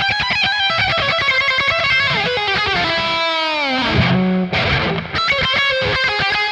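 Electric guitar playing a fast lick of rapidly picked notes, with a long falling glide in pitch about three seconds in, then another run of quick notes. It is the tricky solo lick played with a new, simpler fingering.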